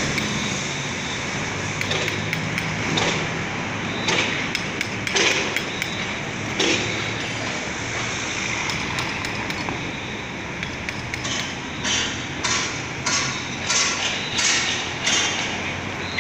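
Street ambience: steady traffic noise with a low engine hum. From about eleven seconds in come sharp knocks, roughly two a second.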